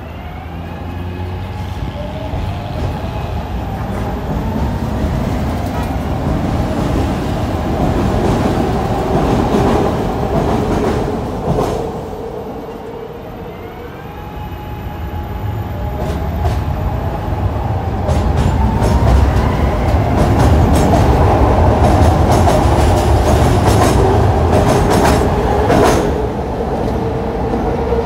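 SEPTA Market-Frankford Line elevated-subway cars running on elevated track: the electric traction motors whine, rising in pitch near the start and again about halfway through. The wheels click sharply over rail joints, loudest in the second half as a train runs close by.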